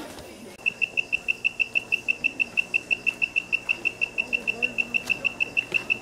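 An animal in the forest calling in a steady run of short, high chirps, all at one pitch, about six or seven a second, starting abruptly about half a second in.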